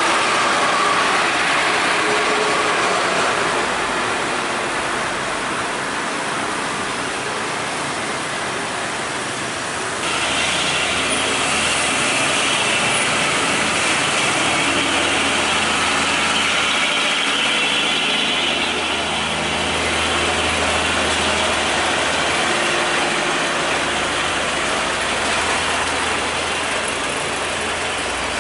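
Steady road traffic noise with heavy truck diesel engines running. The sound changes abruptly about ten seconds in, after which a low engine drone is stronger.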